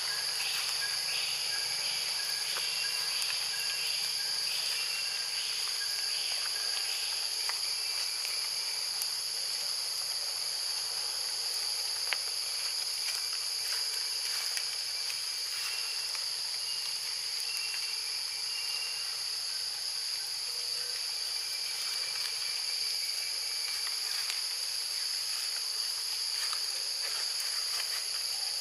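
Steady, high-pitched forest insect chorus, a continuous drone in several layers, with faint short whistled notes repeating over the first several seconds and again near the middle.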